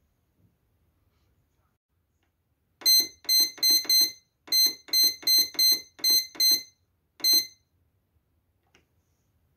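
Scarlett bread maker's control panel beeping, one short high beep for each press of the Menu button, as the programs are stepped through to choose one. About a dozen beeps come in quick succession, about three a second, with a short pause partway and a last single beep a moment later.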